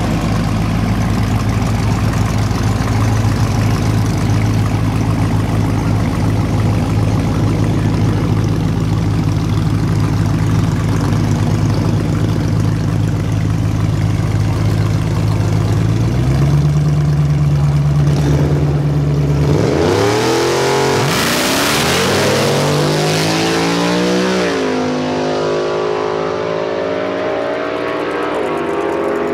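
Dodge Challenger widebody's V8 running steadily at the drag-strip start line, its note stepping up slightly a little past halfway as revs are held for the launch. Then it launches hard: the engine note climbs, drops at a gear shift, and climbs again as the car pulls away down the track and grows fainter.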